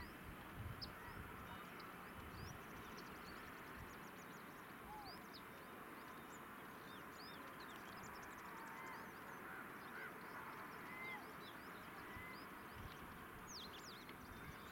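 Birds chirping over a faint, quiet open-air background: many short, high chirps and a few small whistled calls.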